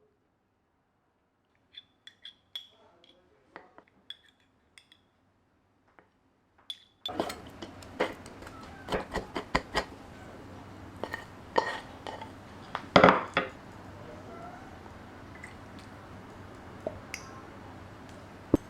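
Kitchen clatter of dishes and utensils clinking and knocking: a few light clinks at first, then from about seven seconds in a busier run of knocks and clinks over a steady background hiss, loudest about two-thirds of the way through.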